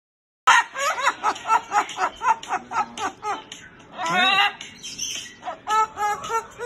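White cockatoo calling: a rapid run of short chattering calls, about three a second, then a longer rising call about four seconds in, followed by more short calls.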